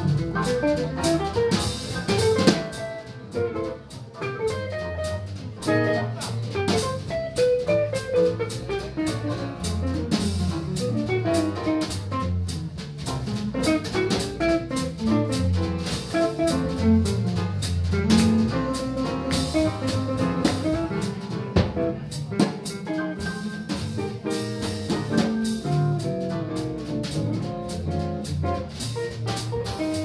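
A jazz combo playing live: an archtop guitar solos over piano, upright bass and drum kit.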